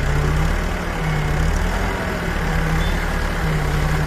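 Sound effect of a heavy truck engine idling, a steady low rumble.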